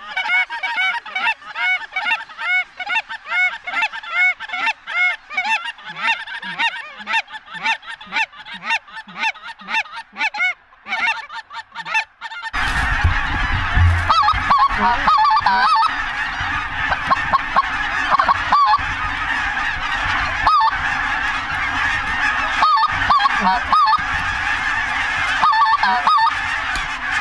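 Huge flock of geese flying overhead, hundreds honking and calling at once in a dense, continuous chorus. About halfway in, a steady rushing noise joins the calls: the sound of the flock's wings.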